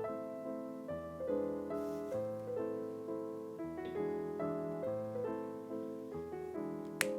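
Background piano music, a melody of note after note, with a single sharp click near the end.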